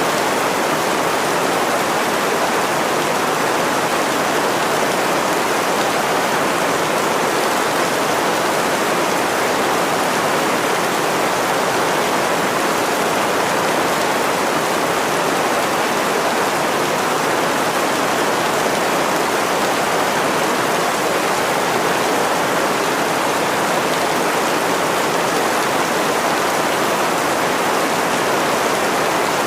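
Steady heavy rain hissing without let-up.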